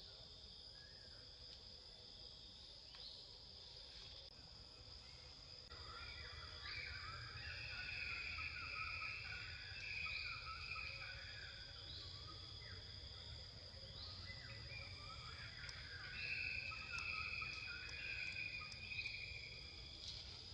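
Insects droning on one steady high note, with a short rising call repeating about every two seconds. Two louder stretches of dense insect buzzing come in, about six seconds in and again about sixteen seconds in.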